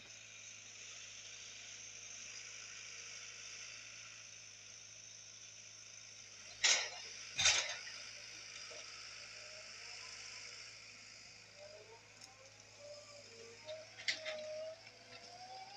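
John Deere 810E forwarder driving loaded with logs: a steady distant engine hum under a high hiss, with two loud sharp knocks about halfway through and a wavering tone plus a few light clacks near the end.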